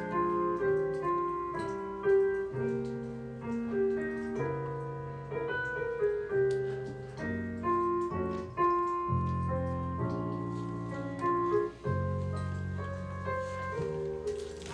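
Piano music playing: a slow melody over held bass notes.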